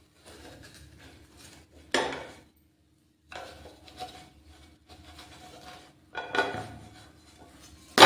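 Wooden spatula scraping and knocking against a nonstick pan while a semolina pancake is loosened and flipped over. There are a few sharp knocks, about two seconds in, past six seconds, and the loudest at the very end as the flipped pancake drops back into the pan.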